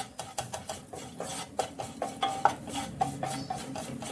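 Spatula scraping and stirring a dry masala of fried onions, green chillies and ground spices around a nonstick kadai, in quick repeated strokes, frying the chilli and coriander powder.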